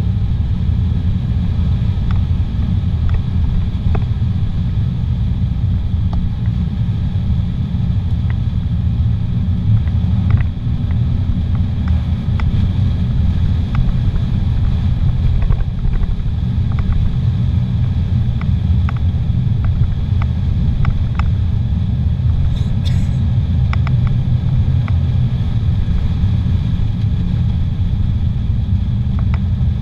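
Steady low rumble of a car driving along a paved highway, heard from inside the cabin: engine and tyre noise with a few faint ticks.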